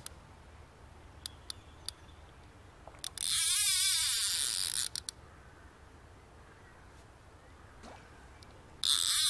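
Fly reel's click-and-pawl drag buzzing as a hooked trout runs and pulls line off the reel: a burst of about a second roughly three seconds in, and a longer one starting near the end, with a few light clicks between.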